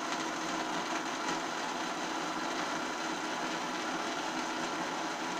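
Countertop blender running steadily, blending iced coffee made with ice cubes, milk and cocoa powder.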